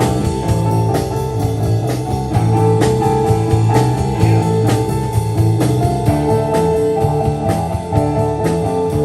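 A live rock band playing a song, with guitar over a steady drum beat.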